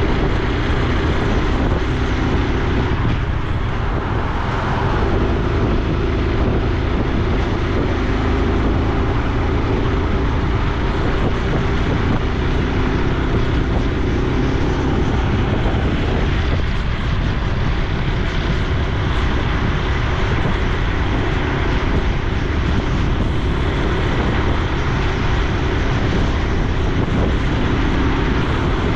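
Honda Super Cub C125's air-cooled 125 cc single-cylinder engine and exhaust running while the bike is ridden along a road, with steady wind rush over the microphone. The engine note rises and falls a little as the speed changes.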